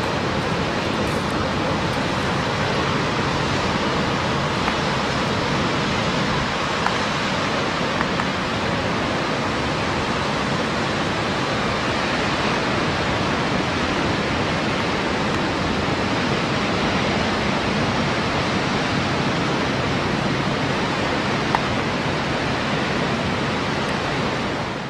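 Steady, even rushing noise with no rise and fall, fading out at the very end.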